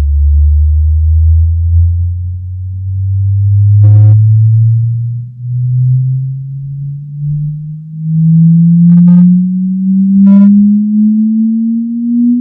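Sine-wave test sweep played through a home-theater speaker system with subwoofer: a single loud, steady low tone gliding slowly upward in pitch from deep bass into the low midrange, part of a 17–300 Hz sweep used to measure the room's bass response. Three brief higher-pitched tones cut in about four, nine and ten seconds in.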